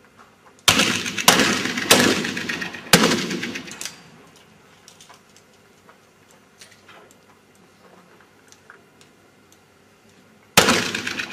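Black powder pistols firing: four shots within about two seconds, each echoing briefly, then a single shot near the end.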